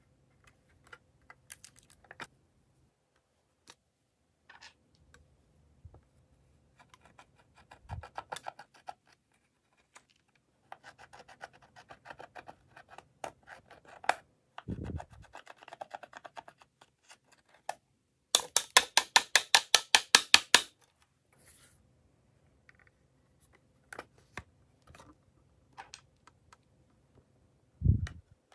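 Thin metal tool scraping and crumbling pressed eyeshadow powder in a plastic palette: scattered scratches and small clicks. In the second half comes a rapid run of sharp clicks lasting about two seconds, and there is a dull knock near the end.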